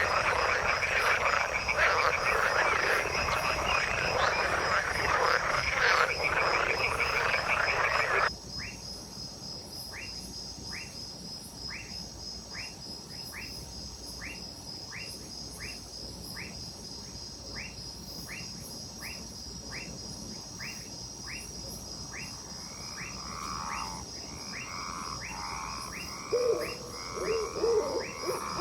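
A dense, loud frog chorus that cuts off abruptly about eight seconds in. A quieter recording follows: single upward-sweeping chirps about one and a half a second over a steady high pulsing trill. More overlapping calls build, and louder, lower calls come near the end.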